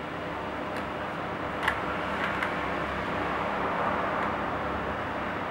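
Steady background rumble like passing traffic, with a few small sharp clicks from laptop parts being handled during disassembly, about one and a half to two and a half seconds in.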